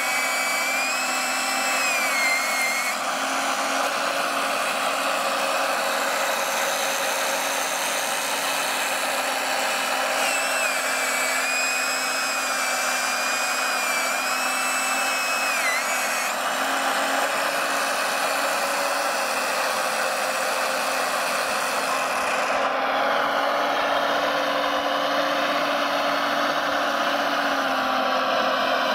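Electric motors and hydraulic pump of a radio-controlled Liebherr 956 model excavator whining steadily as it works its boom. Thin high tones waver and glide up and down as the motor speeds change, and the sound shifts lower about two-thirds of the way through.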